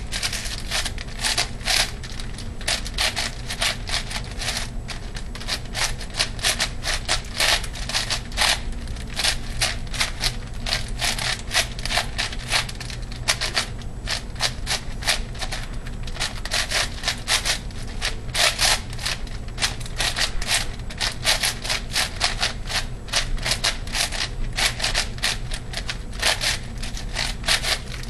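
ShengShou 8x8x8 plastic puzzle cube being turned rapidly by hand in a speedsolve: a dense, uneven run of clicks and scraping from its sliding layers, several turns a second, over a steady low hum.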